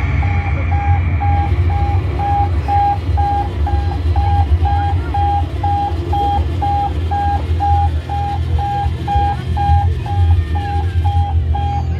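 Electronic warning beeps, about two a second, over a loud low rumble as a transforming robot car made from a yellow Camaro folds down from robot form into a car.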